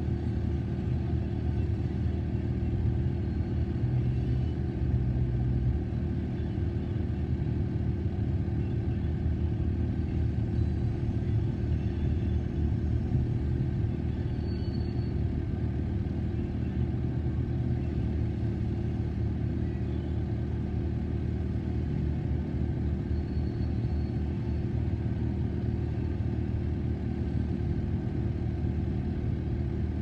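Freight train cars rolling past in a steady low rumble, heard from inside a car's cabin.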